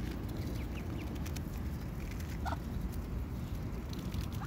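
A few faint, short mallard calls, one about halfway through falling in pitch, over a steady low rumble.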